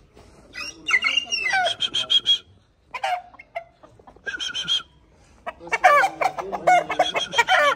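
Chickens calling in three bouts: about half a second in, again briefly near the middle, and again near the end.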